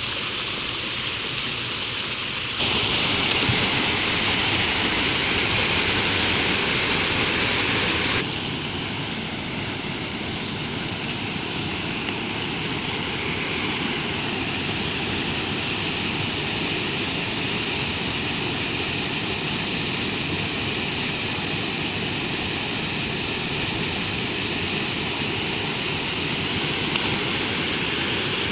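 Steady rush of a waterfall, water falling and splashing without a break. From about three seconds in it turns suddenly louder and hissier for some five seconds, then drops back to the steady rush.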